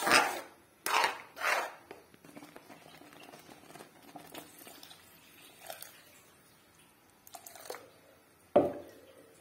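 A metal ladle stirring thin yogurt kadhi in a metal pan: a few scraping strokes in the first two seconds, then mostly quiet with faint wet sounds, and a sharp knock of the ladle against the pan near the end.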